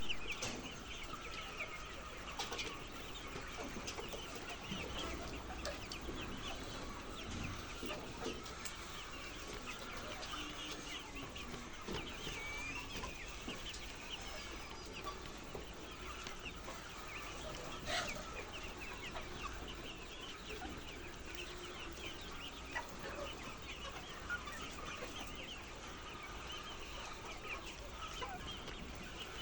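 A large flock of laying hens clucking and calling all at once, a dense, steady chorus of many overlapping short calls. A sharp knock stands out about eighteen seconds in.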